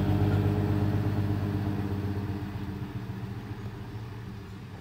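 Dump truck's Hino J07C six-cylinder diesel engine running steadily as the truck pulls away, fading gradually over the few seconds.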